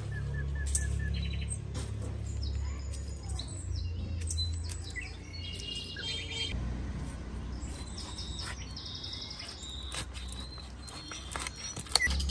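Small birds chirping and trilling on and off, over a steady low rumble, with a few sharp knocks near the end.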